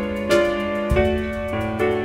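Slow, gentle piano music: chords struck about every half second over a held low note.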